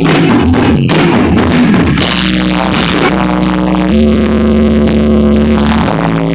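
Live band playing loud rock music, with long held low notes that step to a new pitch every second or so.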